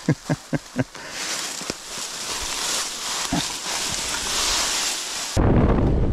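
Four quick thumps, then a steady hiss of dry leaves and brush rustling under a mountain bike's tyres. A little before the end, loud wind buffeting on the microphone cuts in abruptly and drowns it out.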